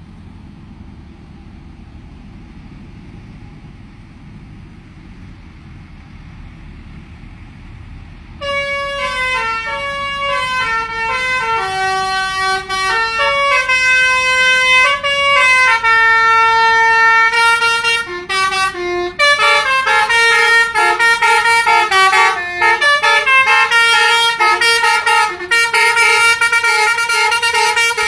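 A low, steady vehicle rumble, then about eight seconds in a bus's telolet basuri musical horn starts playing a tune of loud stepped notes. From about nineteen seconds the tune gets louder and the notes come faster and crowd together.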